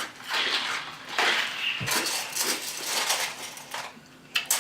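Crushed ice being chewed close to the microphone: a continuous run of loud, gritty crunches that stops about four seconds in.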